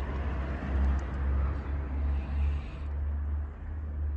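Outdoor ambience: a steady deep rumble with a broad hiss over it that fades out about three seconds in.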